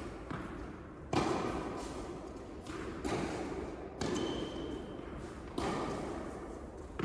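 Tennis ball struck by rackets and bouncing on an indoor court during a rally: several sharp strikes one to two seconds apart, each echoing in the hall, the loudest about a second in.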